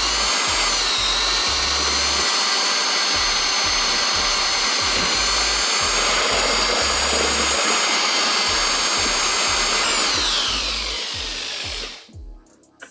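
Corded electric drill driving a paddle mixer through salt water in a bucket to dissolve the salt for brine. The motor whine rises as it spins up, holds steady for about ten seconds, then falls in pitch and dies away as it winds down near the end.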